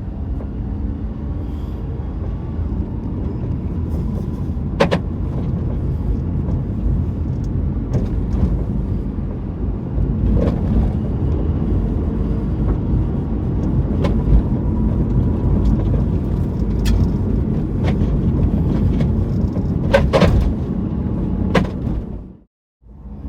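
Honda Vamos running over the road: a steady low rumble with irregular sharp knocks from the suspension, about ten of them. The knocks are the abnormal noise that the title traces to the stabilizer bar bushings.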